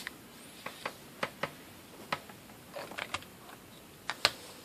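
An irregular series of about a dozen sharp small clicks and taps, like small hard objects being handled and set down, the loudest near the end.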